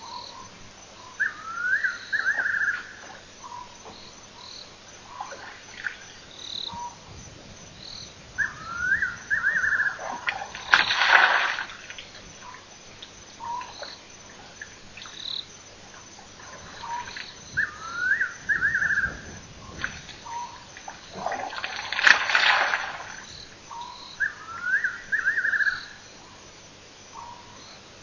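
Night chorus of frogs and birds at a waterhole. A rasping call of several quick notes repeats about every seven seconds, amid scattered short chirps. Two louder rushing bursts come about 11 and 22 seconds in.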